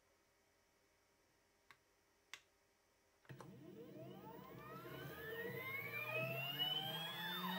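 Two faint clicks, then about three seconds in the stepper motor of a CNC rotary axis starts and spins up its four-jaw chuck: a whine of several tones rising steadily in pitch and growing louder as the motor accelerates toward 260 RPM.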